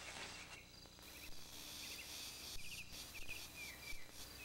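Quiet summer field ambience: a faint steady insect trill with short bird chirps repeating throughout, and a last brief rustle of leaves at the very start.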